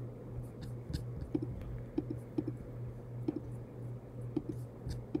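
Irregular light clicks of a computer mouse, several in quick pairs, over a low steady hum.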